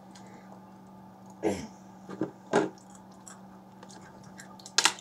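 A boy chewing a sweet: a few short, soft mouth noises, then a sharp cluster of clicks near the end, over a steady low hum.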